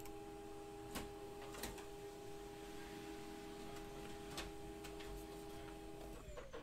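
Printer running as it prints a page: a faint steady whine with a few soft clicks, which winds down and stops about six seconds in as the page finishes.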